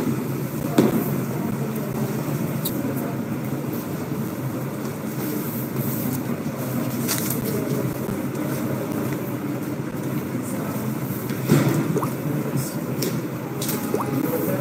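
Steady room noise of a busy indoor public lobby, a low continuous hum, broken by a few brief knocks, about a second in and again around the middle and near the end.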